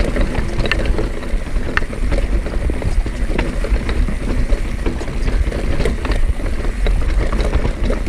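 Mountain bike riding fast down a dirt singletrack, heard on an action camera's microphone: a loud, steady rumble of tyres and wind buffeting the mic, with frequent sharp, irregular clicks and rattles from the bike over rough ground.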